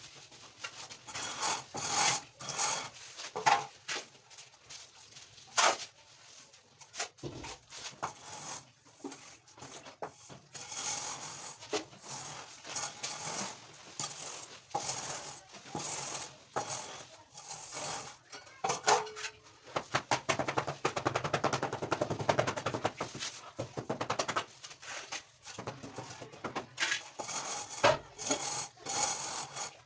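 Hand woodworking on timber: irregular knocks and taps, with a stretch of rasping or rubbing on wood about two-thirds of the way through.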